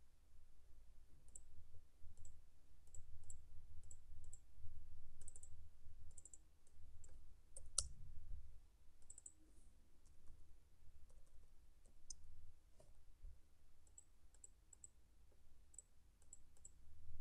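Light, irregular clicks of a computer mouse and keyboard keys, with one sharper click about eight seconds in, over a faint low hum.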